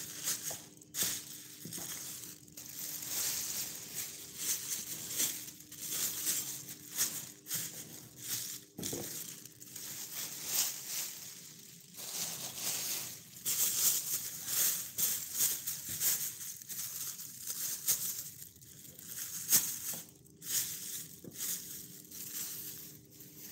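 Thin plastic bag crinkling and rustling as it is handled and folded by hand, in irregular crackles with the odd sharp click.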